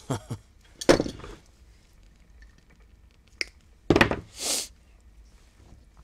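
Hand tools being handled and set down on a wooden desk while a cable's jacket is worked with a utility knife: two dull thunks, about a second in and about four seconds in, with a faint click before the second and a short hiss just after it.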